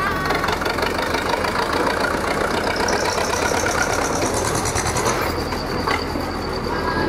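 Zetor 25 tractor's two-cylinder diesel engine running steadily as it pulls a trailer loaded with people away.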